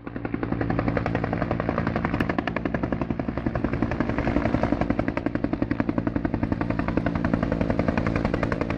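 Two-bladed helicopter flying low overhead, its main rotor beating in a fast, even rhythm of about ten pulses a second.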